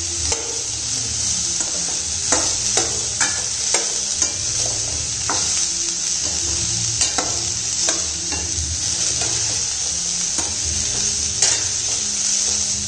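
Chopped baby bitter gourd frying in oil with a steady sizzle, stir-fried in oil alone without water. A metal spatula stirs and scrapes it around a stainless steel pan, making irregular clicks and scrapes.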